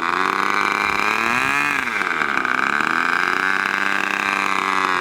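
Gas-powered RC airplane engine running, revved up and back down once about a second in, then holding a steady speed.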